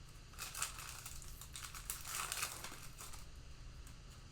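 Plastic trading-card pack wrapper crinkling as it is torn open and handled, in two main spells of rustling, about half a second in and around two seconds in.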